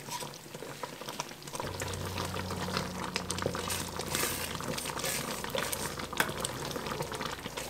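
Thick apricot jam bubbling and popping in a pot as it cooks, with a potato masher and then a wooden spoon working through it. A low steady hum comes in about one and a half seconds in.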